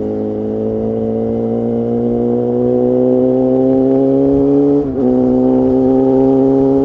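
Suzuki GSX-R750's inline-four running through an Akrapovic exhaust pipe and Spark silencer, pulling under throttle with the pitch climbing slowly and getting louder. About five seconds in there is a quick upshift, where the sound dips briefly and the pitch drops, and then it keeps pulling.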